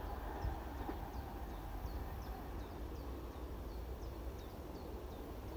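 Low wind rumble on the microphone, with a small bird repeating short, high chirps that slide downward, two or three a second.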